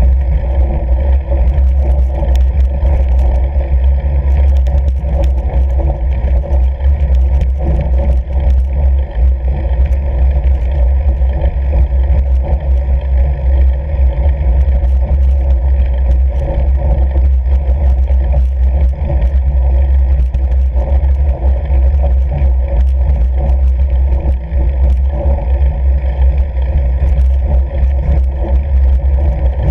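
Steady, loud rumble of a fat bike riding over snow on frozen lake ice, heard through a bike-mounted camera: tyre and wind noise, with many small scattered clicks and rattles.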